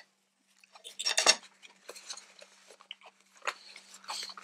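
A person chewing a mouthful of salad close to the microphone, with a louder burst of crunchy clicks about a second in and scattered small mouth clicks after.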